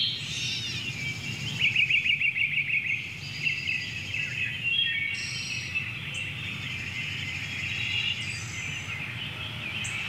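Small songbirds singing, with repeated chirps and a rapid trill about two seconds in, over a steady low background rumble.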